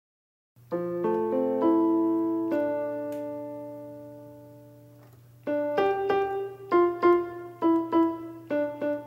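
Solo piano music starting about half a second in: a few notes climb into a chord that rings and fades, then a quicker run of repeated notes begins about five and a half seconds in.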